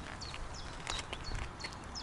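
A songbird singing a quick run of short high whistled notes, each sliding down, repeated every third to half second. Beneath it are scattered footsteps on a dirt track and a low rumble of wind on the microphone.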